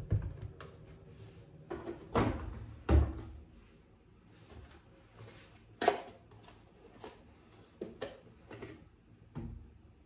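Plastic detergent and fabric-softener bottles being picked up, handled and set down on a hard countertop. A series of separate knocks and thunks, the loudest about three seconds in.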